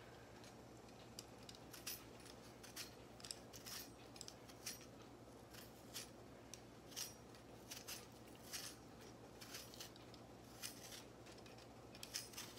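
Faint, irregular clicks and scrapes of a serrated tomato peeler's blade taking the skin off a firm green tomato in short strokes.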